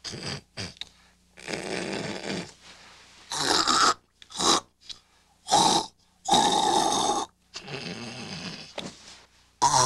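A man snorting and hawking loudly through his nose and throat in a string of irregular bursts, some short and some about a second long: clearing his sinuses and throat to head off loud snoring.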